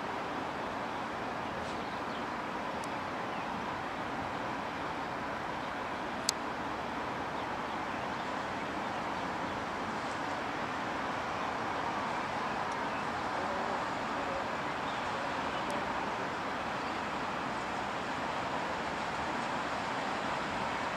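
Slovenian Railways class 715 diesel multiple unit running as it creeps slowly through the yard, heard as a steady, even rumble. There is a single sharp click about six seconds in.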